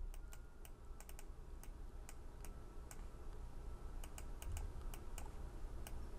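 Faint, irregular clicking of a computer keyboard and mouse, about twenty light clicks, some in quick pairs, over a low steady room hum.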